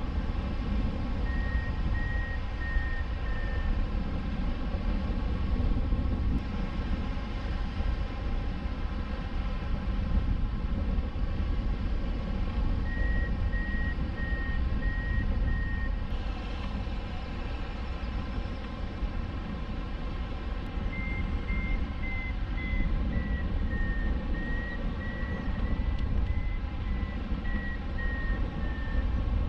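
Wind rushing over the microphone of a hang glider in flight, with a variometer beeping its climb tone in three runs of quick high beeps: briefly near the start, again in the middle, and longest near the end, where the pitch wavers up and down. The beeping signals that the glider is climbing in rising air.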